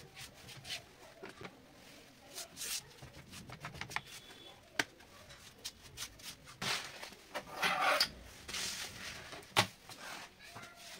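Hands working at a wooden window frame and sill: scattered knocks and clicks, with a stretch of rustling and scraping about two-thirds of the way through.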